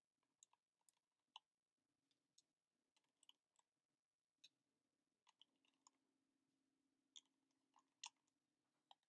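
Faint, irregular small clicks and taps of cartridges being pushed small end first into the six chambers of a Crosman SNR357 revolver's swung-out cylinder.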